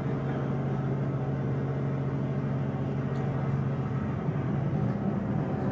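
An engine running at a steady speed, a low even drone that shifts slightly about four seconds in.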